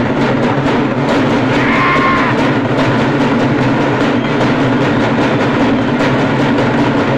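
A troupe of large barrel drums (dollu) beaten together in a fast, even, loud beat. A short high tone sounds over the drumming about two seconds in.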